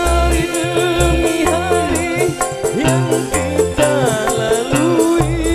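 Campursari koplo band playing live through a PA: a pulsing low drum-and-bass beat, keyboards, and a steady high rattling pulse, with a male voice singing a sliding melody.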